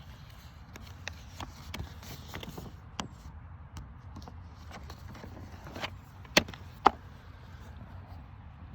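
A scattering of irregular sharp clicks and knocks over a low steady rumble, with two louder knocks about half a second apart near six and a half seconds in.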